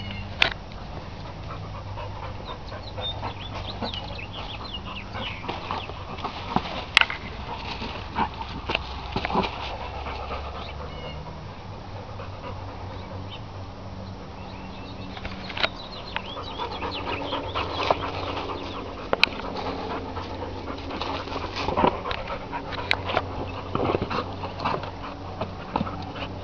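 A dog panting and moving about as it plays with a large rubber ball, with a few sharp knocks several seconds apart.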